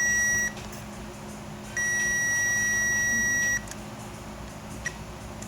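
Digital multimeter continuity beeper sounding: a short beep, then a steady beep of about two seconds, each a single high tone. The beeper signals a low-resistance path between the probes while the board is being checked for a short.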